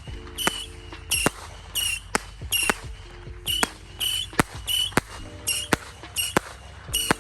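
A Saturn missile battery firing its small rockets one after another, about one to two a second: each launches with a short whistle and ends in a sharp crack.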